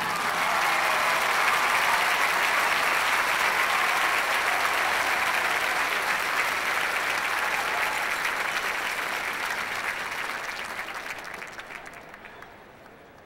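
A large stadium crowd applauding, steady at first, then dying away over the last few seconds.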